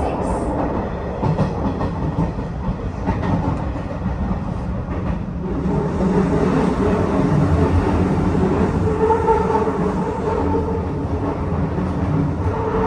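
Hanshin Railway electric train running on the rails, heard from inside the car: a steady rumble with rail noise. About halfway through it grows louder and a steady motor whine comes in.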